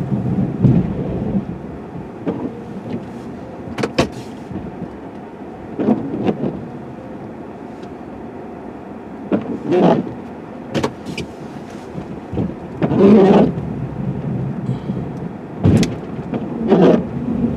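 Snow plow truck working heavy, deep snow: the engine's steady running surges louder every few seconds as the plow rams the pile, with sharp knocks and clanks in between.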